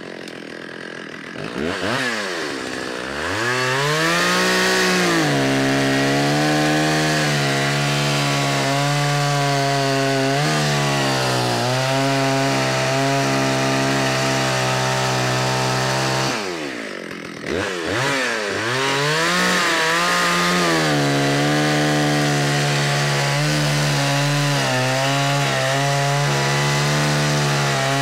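Stihl two-stroke chainsaw idling, then revved up and held at full throttle as it cuts down into a wooden log. About halfway through the throttle is let off and the engine drops briefly, then revs up again for a second cut.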